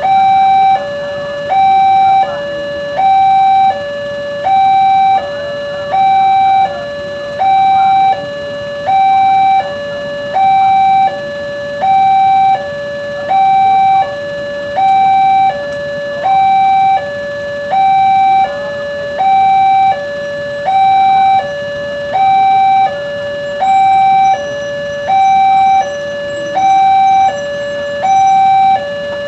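Railway level-crossing warning alarm sounding a steady two-tone hi-lo signal, switching between a higher and a lower tone about every 0.7 seconds, warning that a train is approaching.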